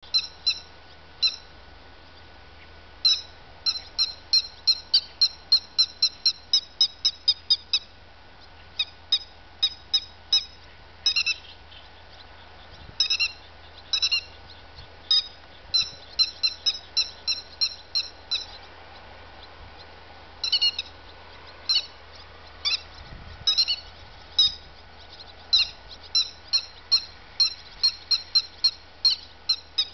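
Grey-headed lapwing calling: short, sharp, high-pitched calls repeated in quick runs of two to three a second, broken by short pauses.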